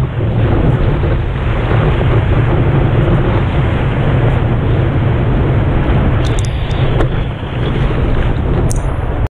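Rushing whitewater and wind buffeting a surfboard-mounted action camera's microphone as the board rides a breaking wave, a steady low roar of water. A few sharp ticks of spray hit the housing about six to seven seconds in and again near the end, then the sound stops suddenly.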